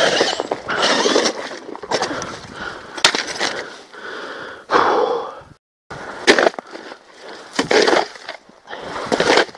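Ice chips and slush crunching and scraping as a freshly drilled hole in lake ice is cleared out with a long-handled scoop, in a series of separate strokes and knocks.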